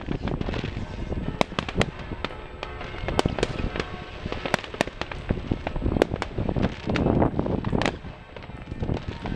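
Many fireworks and firecrackers going off at once: a dense, irregular run of sharp bangs and crackles, some louder than others, with no let-up.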